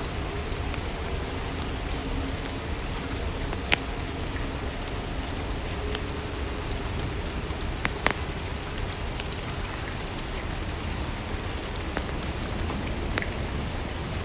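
Steady soft rainfall, an even hiss, with a few sharp ticks scattered through it; the loudest come about four and eight seconds in.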